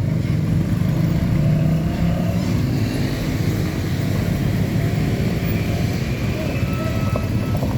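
Heavy vehicles on the road running past with a steady low engine rumble and tyre noise.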